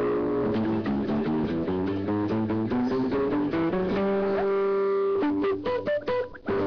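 Background music with a plucked-string melody over a bass line, briefly dropping out near the end.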